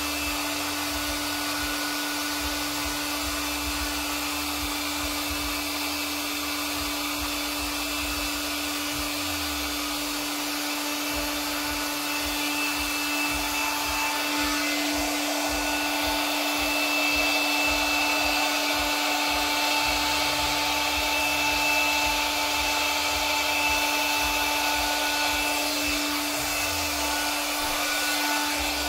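Small electric blower motor running steadily, a constant hum over a rush of air, growing a little louder about halfway through.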